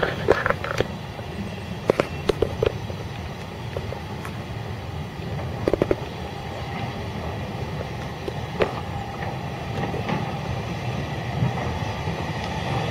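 Small saddle-tank steam locomotive running slowly on the quayside line with a train of wagons: a low rumble that slowly grows louder as it comes nearer, with several sharp clanks scattered through it.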